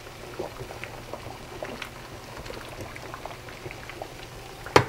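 Pot of water at a rolling boil on the stove, with cabbage in it, bubbling with many small scattered pops and splashes over a low steady hum. Near the end there is a single sharp knock.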